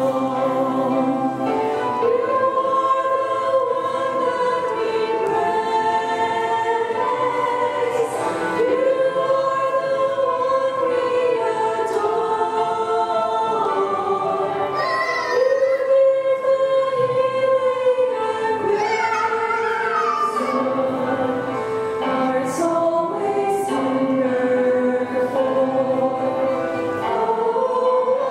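Small women's vocal ensemble singing a religious song in harmony into microphones, holding long notes.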